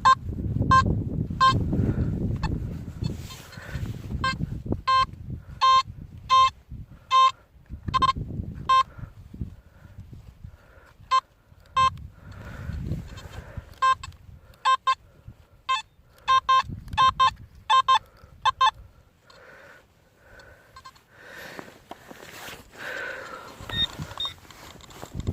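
Metal detector giving short, clipped signal beeps over buried metal, dozens of them in irregular runs that stop a few seconds before the end. Low rumbling and rustling of handling runs underneath.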